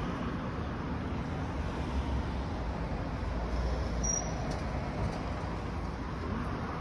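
Steady low rumble of street traffic noise.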